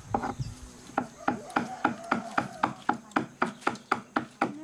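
Rapid, evenly spaced wooden knocks, about four a second, starting about a second in, like wood being chopped or struck.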